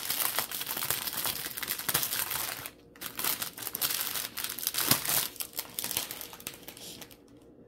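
Plastic packets of diamond-painting drills crinkling as they are handled and sorted through, with a brief pause a little under three seconds in, then dying away near the end.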